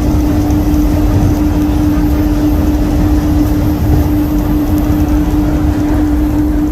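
Skylink automated people-mover train running, heard from inside the car: a steady low rumble with a constant droning hum.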